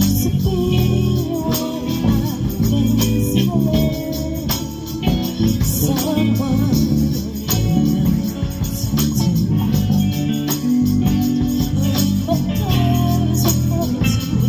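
A live band playing: sustained organ-like chords and bass with regular percussion strokes and a rattling hand percussion, and a melody line gliding over the top.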